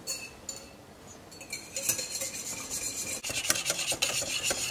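Wire whisk beating egg yolks in a glass bowl: quick rattling, scraping strokes against the glass that start about a second and a half in and keep up fast.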